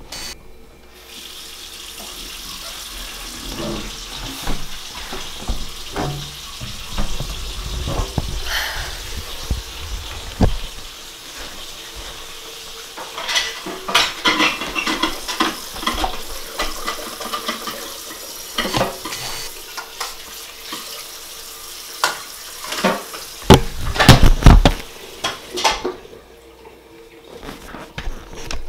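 Kitchen tap running into a sink, with dishes and cutlery clinking. Loud knocks and clatter come about three quarters of the way through, and the running water stops shortly before the end.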